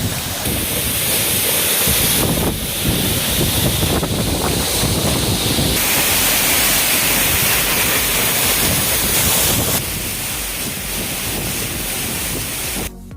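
Loud, steady rushing of a waterfall, water pouring over rock close to the microphone. The level steps up and down abruptly a few times, about two, six and ten seconds in.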